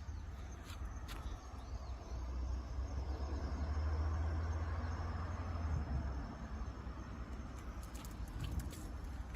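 Outdoor ambience: wind rumbling on the microphone, with a rushing sound that swells and fades in the middle, and faint insects chirping.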